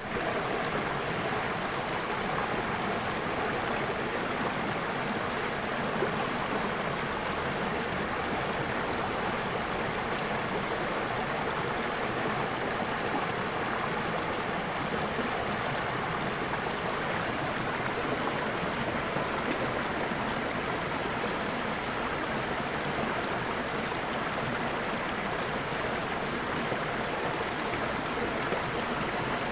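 Natural flowing water: a stream rushing steadily and evenly.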